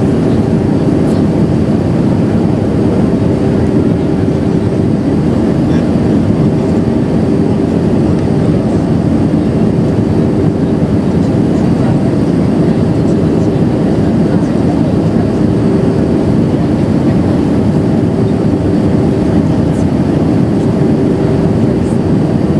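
Airbus A319 cabin noise in descent, heard from a seat over the wing: a steady low rush of airflow and jet engine, with a faint constant hum running through it.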